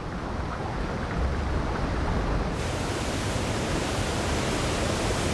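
Fast river water rushing over rapids, a steady dense wash of noise that grows brighter and hissier about two and a half seconds in.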